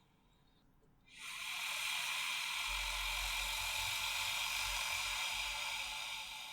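Monster breathing sound effect: one long, hissing breath that comes in about a second in, holds steady and starts to fade near the end.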